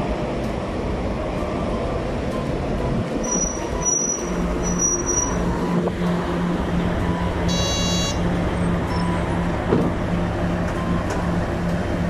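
Yellow school minibus's engine idling at the curb amid street traffic, a low pulsing hum. A thin high whine comes between about three and five seconds, and a short beep about eight seconds in.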